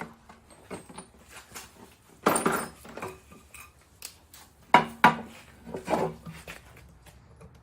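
Clicks, clinks and knocks of a cordless drill, its quick-connect adapter and a drill bit being handled, with several louder clunks between about two and six seconds in.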